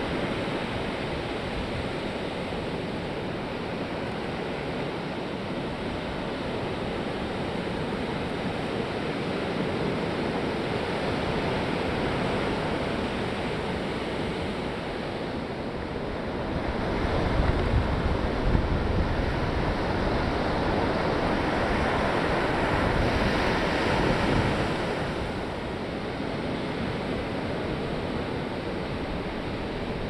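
Ocean surf breaking and washing up a sandy beach, a steady rushing noise with wind on the microphone. It grows louder, with a deep rumble, for several seconds past the middle, then settles back.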